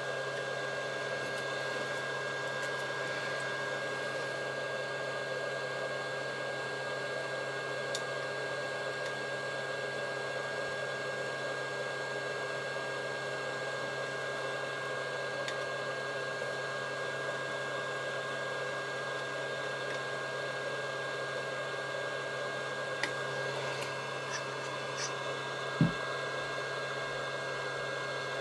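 Steady blowing hiss of the SMD solder station's fan, with a thin steady whine. A few light clicks and one short dull knock come near the end.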